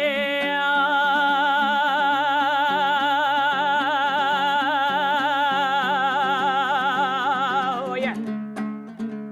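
Kazakh zhyr singing: a singer holds one long note with a wide, wavering vibrato over a repeating plucked-string accompaniment. About eight seconds in the voice breaks off and the strings strum on alone.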